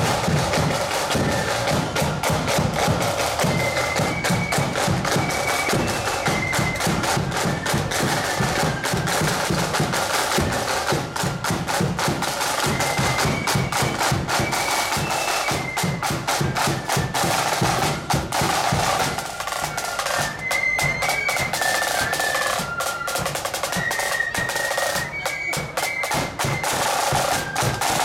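Marching flute band playing: side drums rattling and rolling under a high flute melody of held notes.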